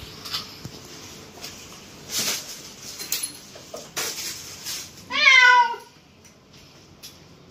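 A domestic cat gives one long, loud, wavering meow about five seconds in. A few short rustling sounds come before it.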